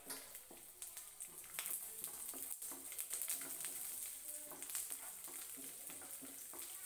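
Garlic cloves sizzling faintly in hot coconut oil in a nonstick frying pan, with small, scattered crackles. Near the end a wooden spatula pushes the cloves around the pan.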